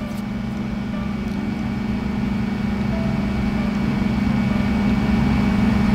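Steady low motor hum, slowly growing louder.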